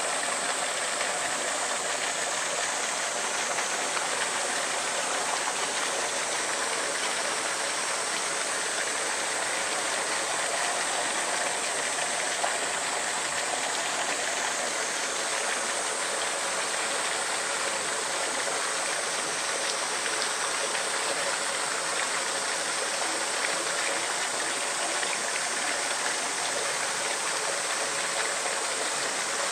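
Steady rush of running water, an even noise that does not change.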